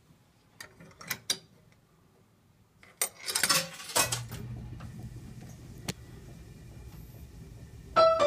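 Seeburg KT Special reproduction coin piano starting up: a few light clicks, a short clatter about three seconds in, then the steady low hum of its motor and pump running. The piano bursts into music right at the end.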